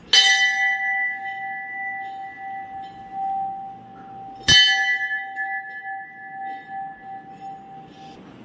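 Hanging temple bell struck twice, about four seconds apart. Each strike rings on with a clear tone that slowly fades.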